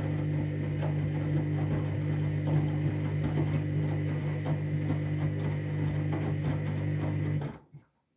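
Washing machine on a 60-degree main wash, its drum turning a load of tea towels: a steady motor hum with faint irregular knocks and swishes of the tumbling laundry. It cuts off suddenly near the end.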